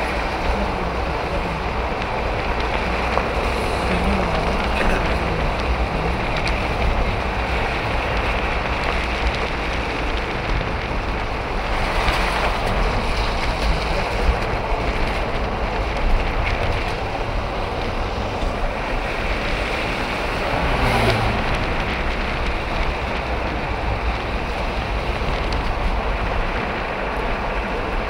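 Steady road noise inside a moving car's cabin: tyres on the road surface, wind rushing past, and a low engine rumble.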